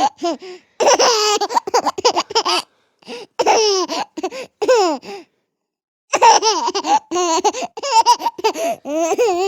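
A baby laughing in repeated high-pitched bursts, broken by short breaths and a pause of about a second near the middle.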